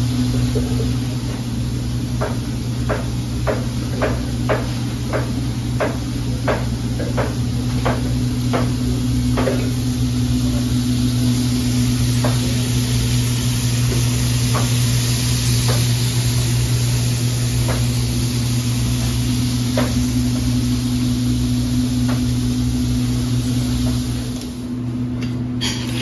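Steady low machine hum with a run of sharp knocks, nearly two a second, for several seconds, then scattered single knocks every second or two.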